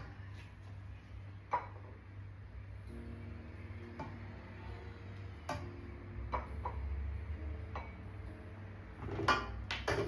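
A spoon knocking and scraping against a bowl and pot as rice is served: a few separate clinks spread out, then a quick cluster of clatter near the end, over a steady low hum.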